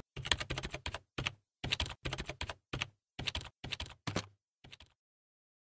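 Typing sound effect: rapid keyboard key clicks in quick runs with short pauses, matching text appearing letter by letter, stopping near the end.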